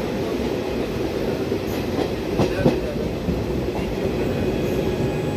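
Passenger train running on the track, a steady rumble of wheels and carriages with a few light clicks from the rails.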